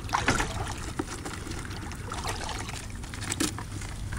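Water trickling and lapping around a small boat, with a few light clicks and knocks as live crawfish are handled over a plastic mesh basket.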